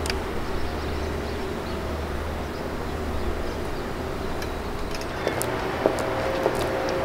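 Steady outdoor traffic and engine hum with a low drone, and a few faint knocks and taps in the second half.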